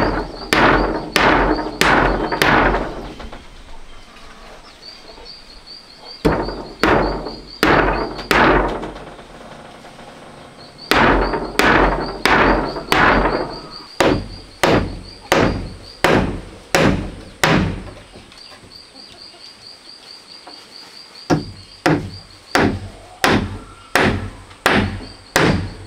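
Hammer driving nails into a wooden board, in runs of four to seven sharp blows about one and a half a second, with pauses of a few seconds between runs. A pulsing insect chirp carries on in the background.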